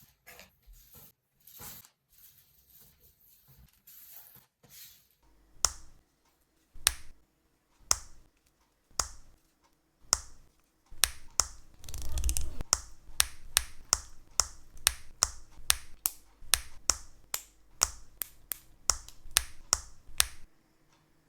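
Sharp plastic clicks from handling and assembling a Gunpla plastic model kit. After some soft rustling come single clicks about once a second, then faster clicking, two or three a second, for the second half.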